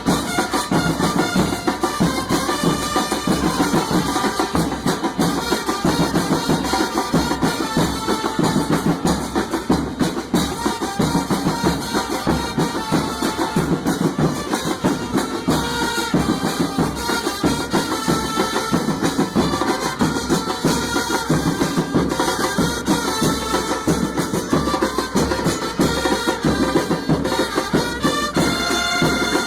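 Music with drums and percussion playing steadily, with wind instruments over them.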